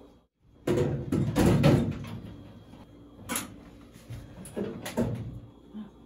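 Clunks and knocks of a kitchen range hood's housing being handled and fitted into place: a cluster of clunks in the first couple of seconds, then single knocks about three, four and a half and five seconds in.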